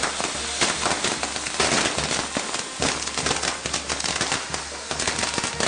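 Fireworks on a castillo, a scaffolding fireworks tower, going off in a dense, continuous rattle of crackles and small bangs.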